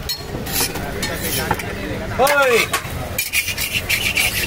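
Metal spatula scraping and tapping on a flat dosa griddle, with clinks of steel plates. A voice calls out once, briefly, about two seconds in.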